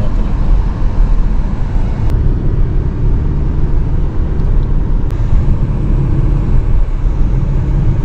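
Steady low rumble of a car driving, heard inside the cabin: road and engine noise.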